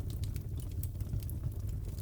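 Crackling wood fire: many small irregular pops and snaps over a steady low rumble.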